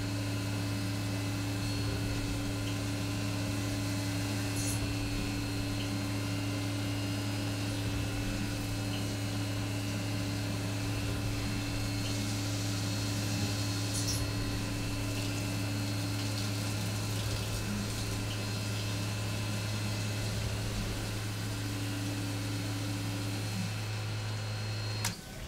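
Tormach 1100MX CNC mill drilling an aluminium block with a 1/8-inch drill at about 6,100 rpm under flood coolant. There is a steady spindle hum with the hiss of coolant spray, and it stops abruptly near the end.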